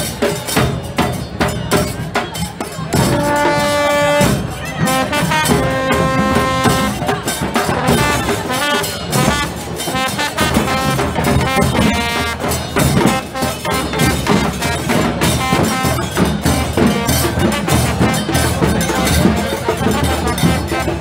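Street band drumming, a big bass drum among the drums, beating steadily, while a brass horn plays held notes a few seconds in, again shortly after, and once more around the middle.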